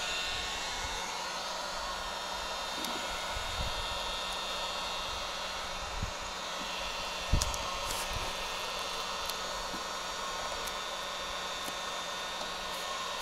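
Electric heat gun blowing steadily with a low motor hum, warming the adhesive backing of a rubber door seal strip. A brief light knock about seven seconds in.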